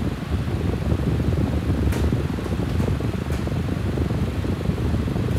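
Steady low whooshing hum of a fan, with one light click about two seconds in.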